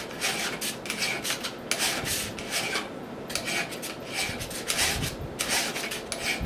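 Hand file rasping across a stepper motor's metal shaft held in a vise. It moves in repeated one-way strokes, lifted between passes, about two to three strokes a second, with a brief pause about halfway. It is filing a flat onto the shaft for a pulley set screw to bite into.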